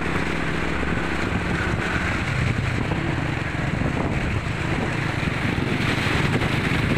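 Motorbike riding through floodwater on a submerged road: the engine runs steadily under wind noise on the microphone and the hiss and slosh of water thrown up by the wheels. The water noise grows louder near the end as a blue auto-rickshaw passes close alongside, splashing through the flood.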